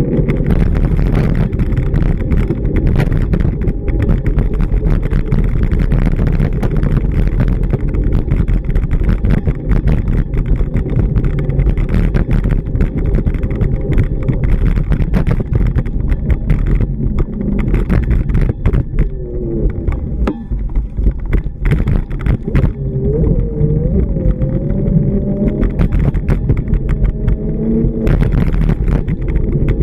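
Busy street traffic: cars passing in a steady low rumble, with many small knocks and ticks throughout.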